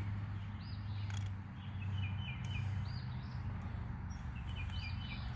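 Birds chirping in short repeated notes, over a steady low hum and outdoor background noise.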